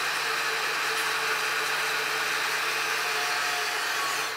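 Angle grinder with a grinding wheel running steadily against steel plate, grinding down a plasma-gouged groove to clean metal. It stops near the end.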